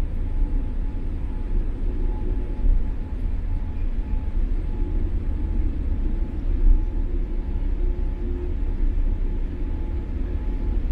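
Steady low rumble inside the cabin of a Boeing 787-8 airliner taxiing on the ground after landing, with a faint steady hum above it.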